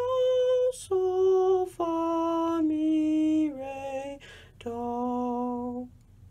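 A man singing unaccompanied on solfège syllables: about six held notes stepping mostly downward, the last and lowest held longest and ending about six seconds in, closing the sight-singing exercise.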